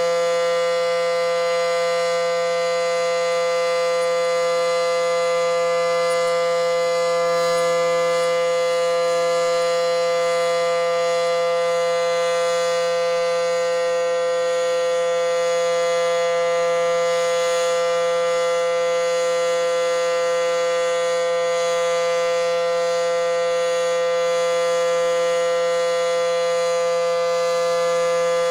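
SD-10 air raid siren sounding a loud, steady tone, held at one constant pitch with many overtones and no rise or fall.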